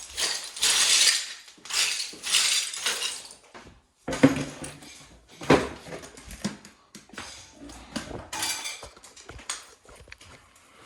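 Hard pieces clinking and scraping against each other, with sharp knocks about four and five and a half seconds in, then a run of small clicks.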